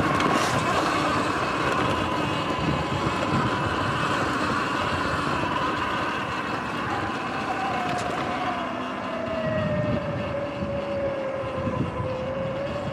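Sur Ron electric dirt bike riding over grass: a steady electric-motor whine over the rumble of knobby tyres and wind. About halfway through a lower whine comes in and slowly drops in pitch as the bike slows.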